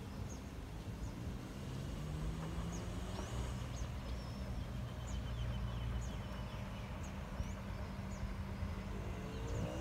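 A steady low engine drone, with small birds chirping in short, repeated calls over it. Near the end the drone rises slightly in pitch.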